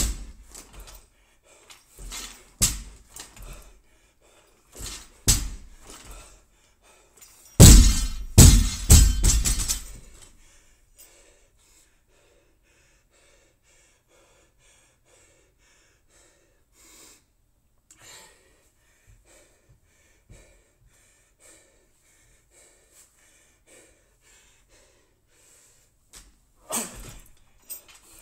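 A loaded barbell with rubber bumper plates knocking on a rubber gym floor: a few single knocks, then about eight seconds in the bar is dropped and bounces and rattles for about two seconds. After a long quieter stretch, more knocks come near the end as the bar is lifted again.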